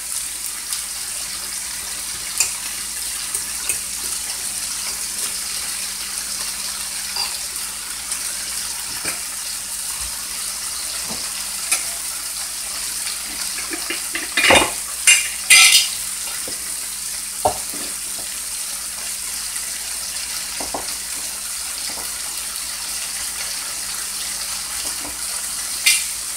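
Boneless beef short ribs frying in a skillet, a steady sizzle, with a few light clinks of utensils and a short clatter of dishes about halfway through.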